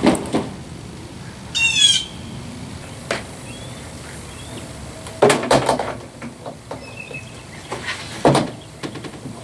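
High-density polyethylene canoe hull being dragged and bumped across wooden dock boards, giving a few scrapes and knocks near the start, about five seconds in and about eight seconds in. This is a drag test of a plastic-welded hole repair. A short high bird call chirps about two seconds in.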